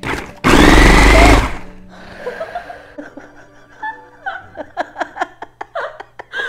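Countertop food processor motor runs loudly for about a second, blending thin tahini sauce that splatters out of the bowl. A woman then laughs in many short bursts.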